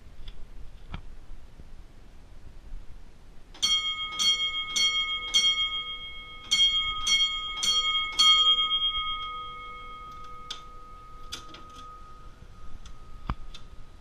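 Restored IBM (Simplex) fire alarm bells sounding a 4-4 temporal code. The bells give four strikes about half a second apart, pause for about a second, then give four more strikes, and the ringing fades away over a few seconds. A few faint clicks come near the end.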